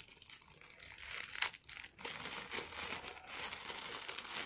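Thin polythene bag being crinkled and pulled open by hand, with one sharper crackle about a second and a half in.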